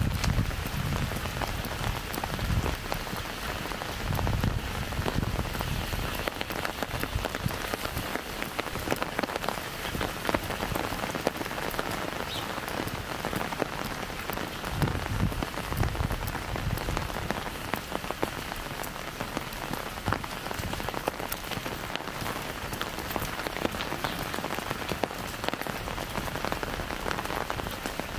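Light rain falling steadily, many small drops tapping on an umbrella overhead and on wet pavement. A few brief low rumbles come near the start, a few seconds in and about halfway.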